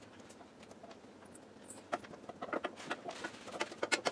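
Light handling noise at a kitchen counter: near quiet at first, then from about two seconds in a run of short, irregular clicks and taps.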